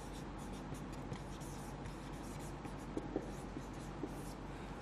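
Marker pen writing on a whiteboard: faint, short scratching strokes as a word is written out.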